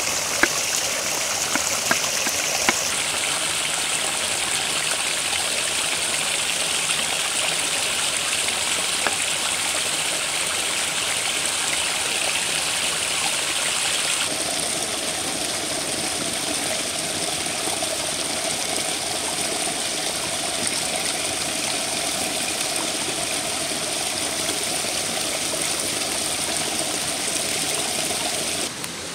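Steady rushing of running water, its tone shifting twice. A few sharp knife chops on a wooden chopping block sound in the first two seconds.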